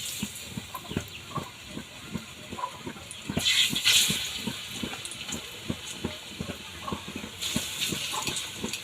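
Cooking oil frying saba bananas for banana cue: irregular crackles and pops throughout, with two stretches of louder sizzle, about three and a half seconds in and again near the end.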